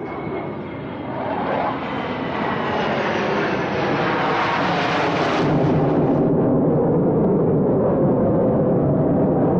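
Formation of military jets flying overhead: the jet-engine roar builds to a peak about five seconds in, where its high hiss cuts away and leaves a steady deep rumble.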